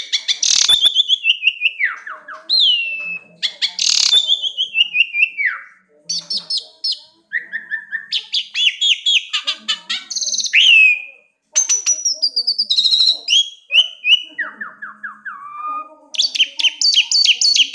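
A songbird singing a long, varied song of loud, high whistles, falling slurred notes and fast chattering trills, broken by short pauses.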